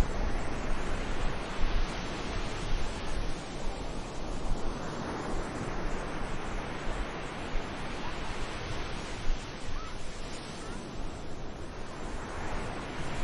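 Sea waves breaking and washing on a beach, the surf swelling and easing every few seconds.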